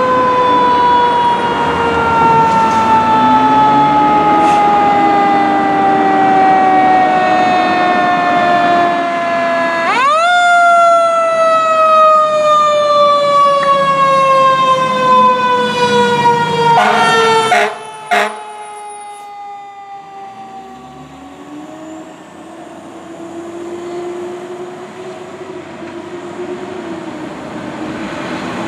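Federal Q2B mechanical siren on a fire engine responding code 3: one long wail that coasts down slowly in pitch, is spun back up sharply about ten seconds in and coasts down again, then breaks off abruptly about two-thirds of the way through. Underneath and afterwards, a heavy engine revs up as the truck pulls away, with passing traffic.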